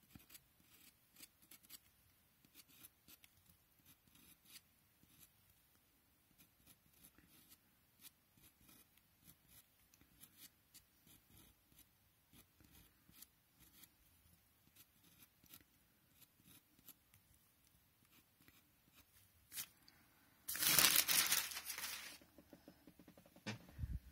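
Pencil tip flicking short, quick hair strokes across paper: faint, irregular scratches a few times a second. Near the end a louder rustling scrape lasts about a second and a half, then a couple of knocks.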